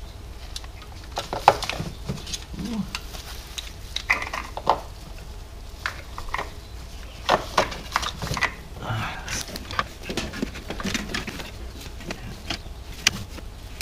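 Irregular metallic clicks and clinks of a hand tool on the valve cover bolts of a BMW N62 V8, over a steady low hum.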